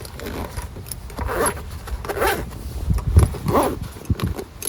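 Irregular rustling and scraping of gear being handled and pulled out of a bag, with a dull low knock about three seconds in.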